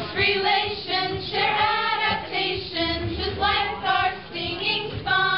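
A group of voices singing a song together in sung syllables and held notes.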